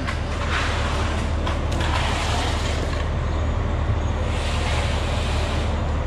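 Concrete mixer truck's diesel engine running steadily, a constant low hum with no change in pitch.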